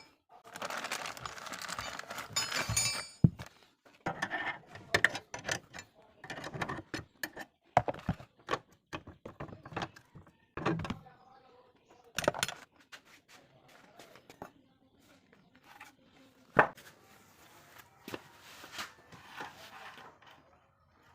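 Irregular metallic clinks, knocks and thunks of hand tools and metal parts being handled, with a rattling stretch near the start and single sharper knocks about 3, 12 and 16 seconds in.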